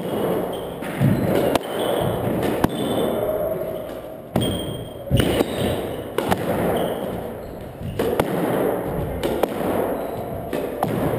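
Squash ball being struck by rackets and hitting the court walls during a rally: sharp cracks about once a second, ringing in the enclosed court.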